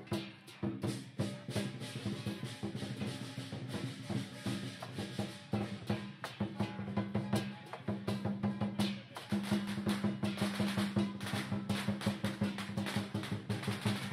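Chinese lion dance percussion: a drum beating a fast, continuous rhythm with cymbals clashing on the beats, and a steady low ringing tone underneath.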